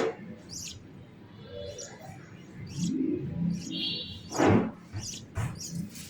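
Budgerigars chirping in short, irregular high calls, with one louder sound about four and a half seconds in.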